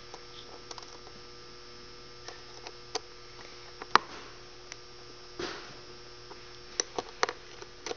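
Steady electrical hum, with scattered light clicks and taps of small metal parts as the buckle screws are started into the EZ-Boot. The sharpest click comes about four seconds in, and a run of clicks comes near the end.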